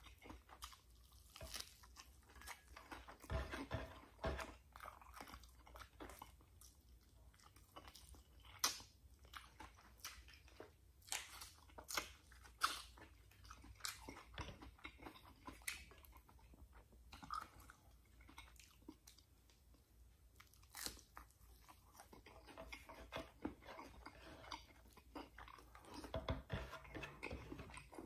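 A person chewing and crunching fried dried milkfish with rice up close, with irregular sharp crunches and clicks of the mouth.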